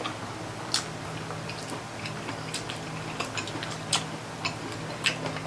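Someone eating pork baby back ribs close to the microphone: irregular sharp wet clicks and smacks of the mouth while chewing.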